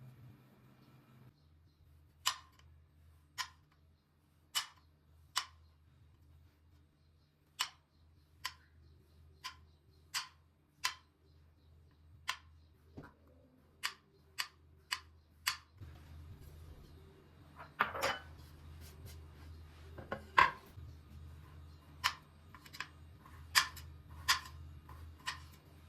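A series of sharp clicks and taps in the kitchen, irregular and roughly one a second, a few louder than the rest, over a faint steady low hum.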